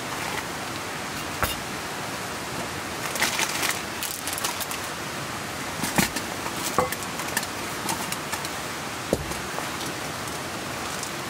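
Steady hiss of falling rain, with scattered light clicks and knocks on top, several close together about three seconds in and again around six to seven seconds in.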